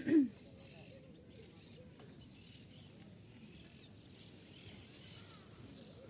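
Quiet outdoor ambience with faint, scattered bird calls, after a brief bit of voice at the very start.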